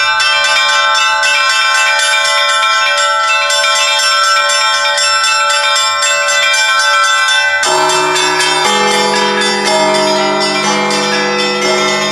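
Russian Orthodox church bells rung in a festive Easter-week peal (trezvon). Rapid, overlapping strikes on the small high bells are joined about eight seconds in by deeper, larger bells.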